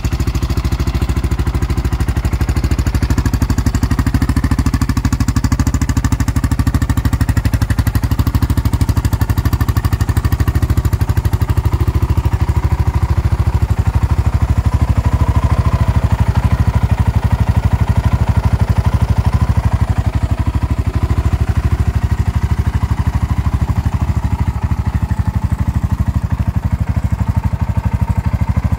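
2008 Honda TRX700XX's single-cylinder four-stroke engine, big-bored to 727cc with a Hot Cams stage 2 camshaft and a Barker's full performance exhaust, idling steadily just after a cold first start.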